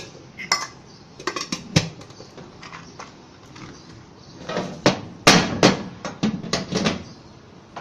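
Metal kitchenware clattering: irregular sharp knocks and clinks of pans and utensils, with a denser run of them in the second half.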